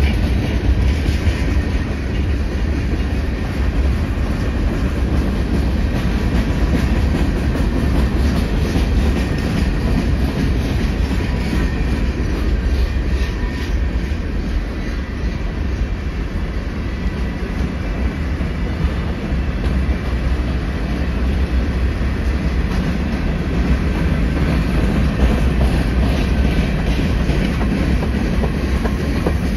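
Freight cars of a long mixed freight train rolling past close by: a steady, loud rumble of steel wheels on rail with a clickety-clack as the wheels cross the rail joints.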